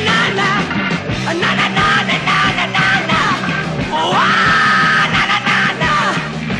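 Loud early-1970s hard rock song with a rock band's drums and guitars playing; about four seconds in, a high note slides up and is held for roughly two seconds.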